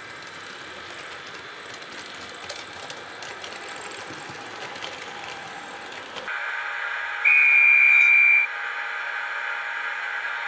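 H0 model train rolling along the track, a light even rumble with small clicks. It changes abruptly to the steady electronic hum of a model Rh 1116 locomotive's sound decoder, which sounds one loud, steady high horn tone lasting just over a second.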